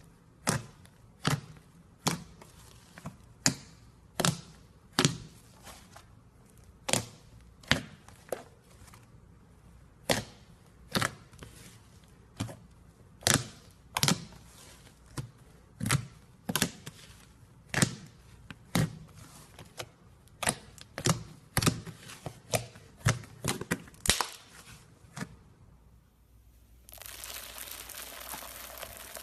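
Slime being squeezed and poked by hand, giving sharp popping clicks at an uneven pace of one or two a second. Near the end the clicks give way to a steady crackling hiss.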